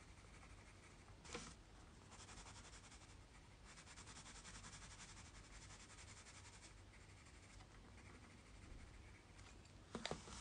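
Watercolour pencil shading on a paper tile: faint, fast scratching strokes in two stretches, with a soft tap about a second in and small clicks near the end.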